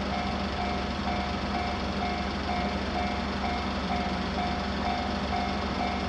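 Japanese railway level-crossing warning bell ringing, a repeated electronic ding about twice a second, over a steady low hum.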